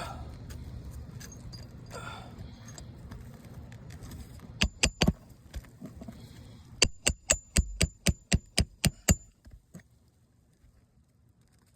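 Hammer driving nails into roof shingles: three sharp blows, then after a short pause a quick run of about nine blows with a high ring.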